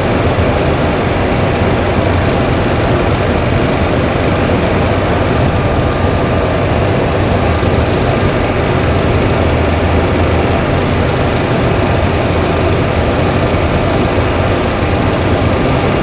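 Steady cockpit background noise of a Boeing 737 Classic on the ground with its APU running and APU bleed air driving the air conditioning: an even low hum under a constant rush of air, with a few faint clicks.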